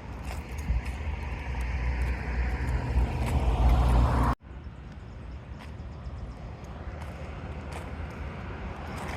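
A road vehicle passing, its low rumble growing louder for about four seconds until the sound cuts off suddenly, followed by quieter steady outdoor background noise.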